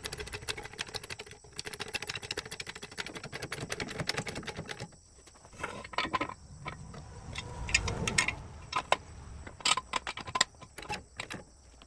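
A jack being worked to lift a zero-turn mower: fast, even clicking for about five seconds, then scattered clicks and knocks with a low thump about eight seconds in.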